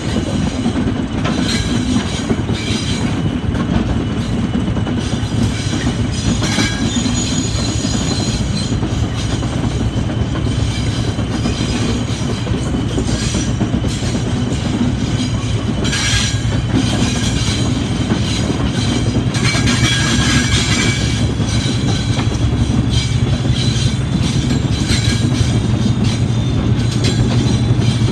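Class 73 electro-diesel locomotive running on its diesel engine, working hard uphill with a steady low drone that grows louder near the end. Wheels clatter over the rail joints, with brief high squeals from the wheel flanges on curves in the second half.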